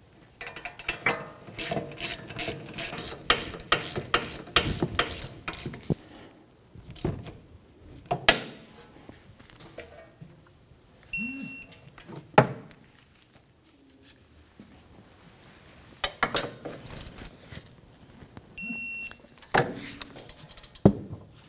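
A ratchet clicking rapidly for several seconds as the rear brake caliper's 18 mm mounting bolts are run in and snugged, followed by scattered sharp clicks and knocks. Twice a short, high electronic beep sounds, the signal of a torque wrench reaching its set torque on the bolts.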